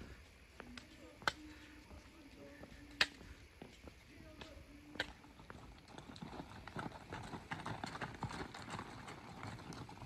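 Trekking pole tips striking bare sandstone: three sharp taps about two seconds apart. Then, from about six seconds in, a string of pack mules walking on a rocky trail, many hooves clopping on gravel and stones.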